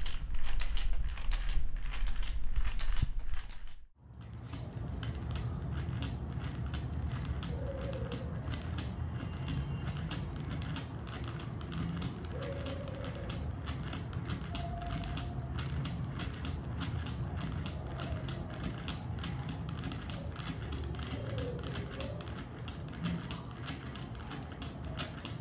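Glass marbles clicking against each other and the glass tube of a 3D-printed marble Stirling engine as the tube rocks back and forth under a spirit-lamp flame: a steady run of small clicks, with a short break about four seconds in.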